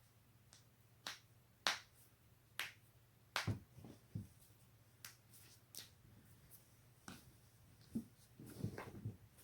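Spinal joints cracking: about a dozen sharp, irregularly spaced pops, some with a dull thud beneath them, and a quick run of pops near the end.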